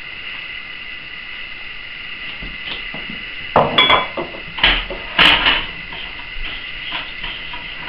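Kitchen clatter of a bowl and a utensil on the counter and against a stainless steel saucepan: a few sharp knocks bunched together from about three and a half to five and a half seconds in, over a steady background hiss.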